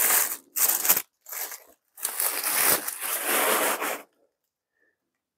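Tissue paper packing crinkling and rustling as it is pulled off a plastic cup by hand. It comes in three bursts, the last about two seconds long, and stops about four seconds in.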